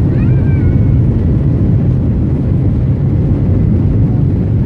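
Airliner engines and airflow heard from inside the cabin as a loud, steady low rumble while the plane prepares for or begins takeoff. A short high squeak sounds near the start.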